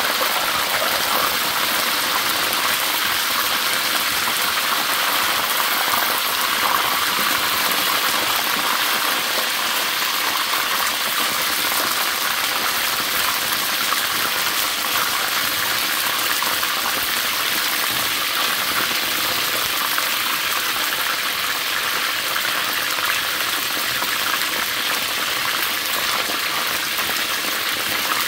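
Chicken wings frying in hot oil: a steady sizzle with fine crackle that does not change throughout.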